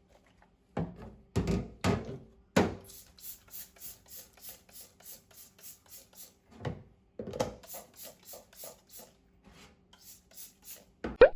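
A few handling knocks, then rhythmic rasping strokes, about three a second, ending in a short, loud rising scrape.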